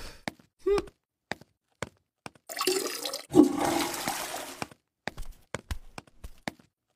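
Cartoon sound effects: a short vocal murmur, then a rushing noise lasting about two seconds, followed by a run of light footstep taps.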